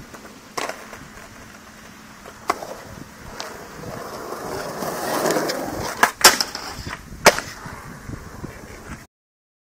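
Skateboard wheels rolling on concrete, growing louder toward the middle, with three sharp clacks of the board. The sound fades, then cuts off abruptly near the end.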